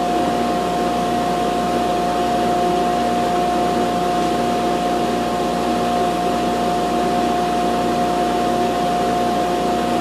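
Shop dust collector running steadily: a constant rush of air with a steady whining tone.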